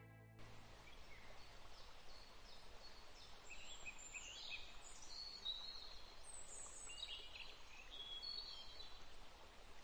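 Faint birdsong: many short, high chirps and whistles over a soft steady hiss of outdoor ambience.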